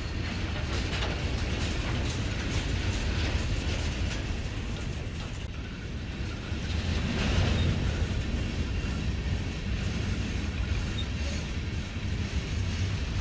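Empty aluminum coal hopper cars of a freight train rolling past: a steady low rumble of steel wheels on rail with faint scattered clicks, swelling louder about seven seconds in.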